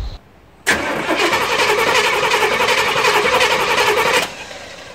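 Starter cranking the 1994 Chevy 3500 HD's throttle-body-injected big-block V8 on a fresh battery, steadily and briskly for about three and a half seconds starting about a second in, then stopping abruptly without the engine catching.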